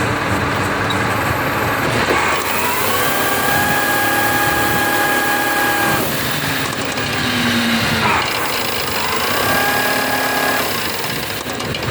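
Berardinucci Tornado walk-behind tiller's small engine running in the field. It revs up and holds high revs twice, first about two and a half seconds in until about six seconds, then again near nine seconds, each time dropping back to a lower, rougher run.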